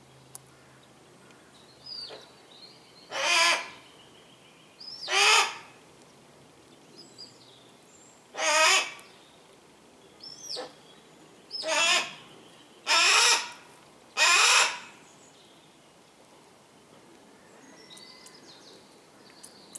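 Harris's hawks calling at the nest while the chicks are fed: six loud, harsh, rasping calls of about half a second each, with a few thin falling whistles in between.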